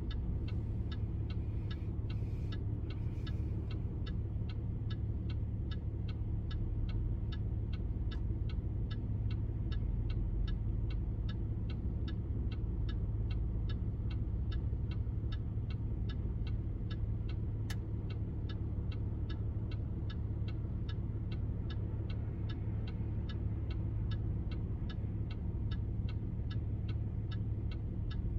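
A car's turn-signal indicator ticking steadily, about two or three clicks a second. It plays over the low hum of the engine idling, heard from inside the cabin.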